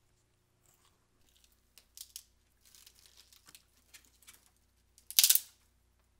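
Crinkling and crunching of a microwave popcorn bag being handled, with one loud, brief tearing rip a little past five seconds in.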